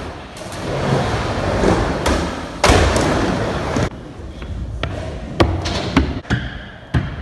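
Skateboard wheels rolling on a wooden vert ramp, with one loud thud of the board hitting the ramp about two and a half seconds in. The rolling stops about four seconds in, and only a few scattered knocks follow.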